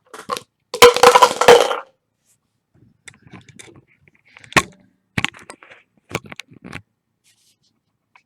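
Sharp clicks and taps of a computer mouse and keyboard, spread irregularly, after a loud crackling clatter about a second in.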